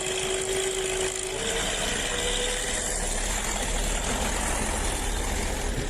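An engine running steadily, its tone stepping up slightly in pitch about a second and a half in.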